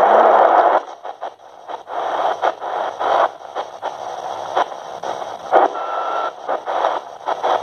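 Philips DL167 portable radio tuned to the short-wave band: a station's sound drops away about a second in, leaving choppy hiss and static that keeps cutting in and out, with a short whistle about six seconds in.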